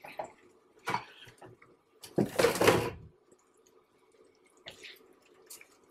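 Plastic spatula stirring and pressing soft, juicy strawberry chunks in a nonstick skillet as they cook down in sugary juice: wet squelching and scraping, with a few light taps and one louder push lasting about a second in the middle. A faint steady hum runs underneath.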